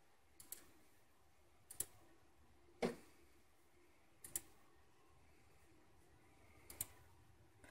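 Faint computer mouse-button clicks, about five spaced a second or more apart, some in quick pairs, as the setup screens are clicked through.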